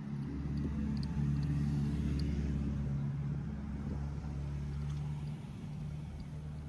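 An engine running with a steady low hum, loudest a second or two in and then slowly fading.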